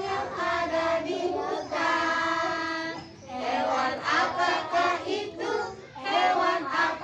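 A group of young children singing a song together, with one long held note about two seconds in.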